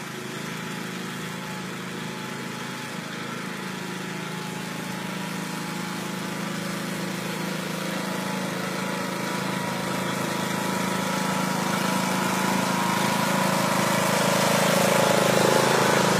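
Riding lawn mower's engine running steadily as the mower drives toward the listener, growing louder until it is close by near the end.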